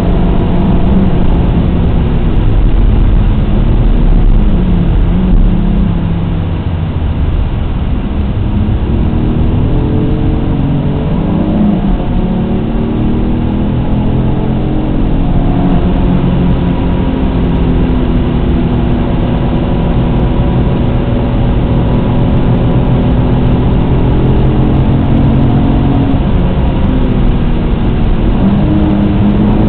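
Alfa Romeo GTA's 3.2-litre V6 engine heard from inside the cabin at speed, revving up and falling back repeatedly through gear changes and braking, then holding steady revs for a long stretch.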